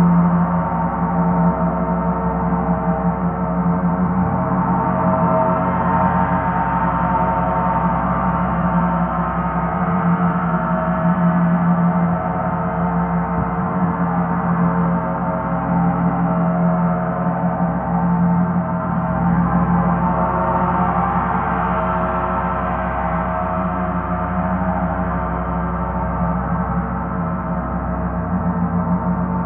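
Paiste planetary gongs ringing in a continuous wash of overlapping sustained tones, with a strong low hum beneath, swelling brighter twice.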